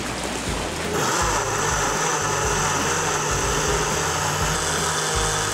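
Countertop blender switching on about a second in and running steadily at high speed, puréeing fresh and frozen strawberries with lime juice, powdered sugar and dark rum for strawberry daiquiris.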